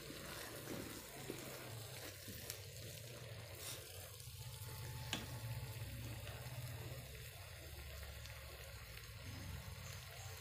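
Faint sizzle of okra and onion masala cooking uncovered in a nonstick karahi as the moisture from the tomatoes and onions cooks off, over a steady low hum. A silicone spatula stirs through it at first, and there are a couple of light clicks in the middle.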